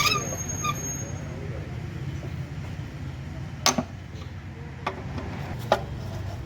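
Metal tools and parts clinking during work on a car's steering and suspension: a few light taps in the first second, a quick double click past halfway, then two single clicks near the end, over a steady low hum.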